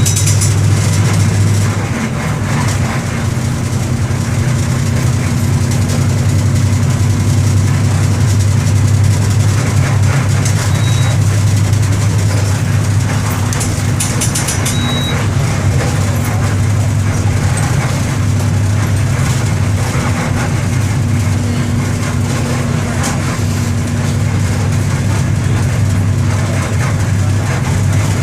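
Mercedes-Benz OM-924 LA four-cylinder inline diesel of an OF-1721 BlueTec 5 bus running at a steady speed, its low engine note holding even, with a slight drop in level about two seconds in.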